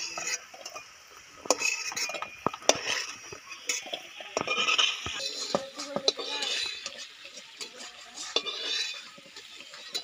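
Long metal spatula scraping and clinking in a metal kadai and against a steel bowl as fried potato pieces are lifted out of hot oil, with irregular knocks throughout and the oil sizzling now and then.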